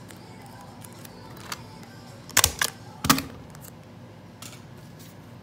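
Folded paper entry slips rustling and crinkling as a hand digs into a bowl and pulls one out, with a few sharp crackles about two and a half seconds in and again around three seconds, and lighter ticks around them.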